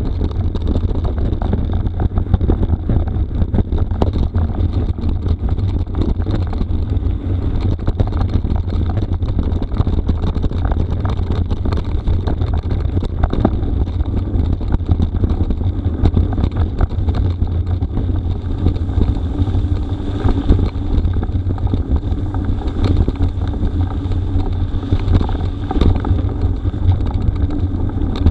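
Wind buffeting the microphone over mountain bike tyres rumbling on a rough gravel forest road, with a constant clatter of small knocks and rattles from the bumps.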